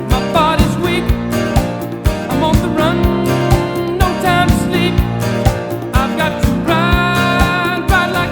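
Background music: a song with a steady beat and a wavering sung melody over guitar.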